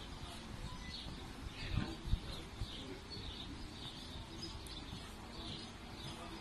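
Birds chirping repeatedly, fairly quiet, with two low thumps about two seconds in.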